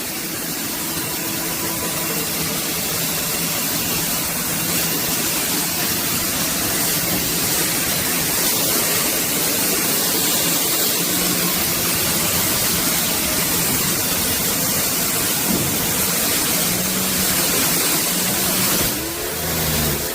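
Patoolio electric pressure washer running, its high-pressure water jet spraying a deck: a steady, loud hiss of spray over a low motor hum.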